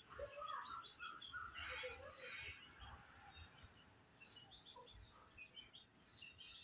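Faint chirping of small birds: many short calls overlapping, busiest in the first few seconds, thinning out in the middle and picking up again near the end.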